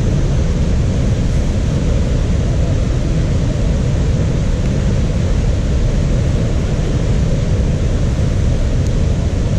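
Steady, even roar of a rushing river, heaviest in the low end and unbroken.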